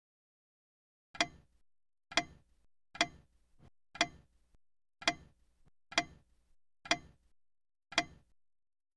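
Clock ticking once a second: eight sharp ticks, each with a short ring, starting about a second in.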